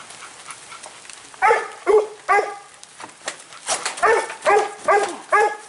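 A dog barking repeatedly, starting about a second and a half in: three barks, a short pause, then a quicker run of five barks.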